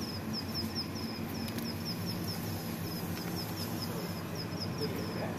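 Insect chirping steadily: short high notes in quick runs of three or four, repeating about every second, over a low steady hum.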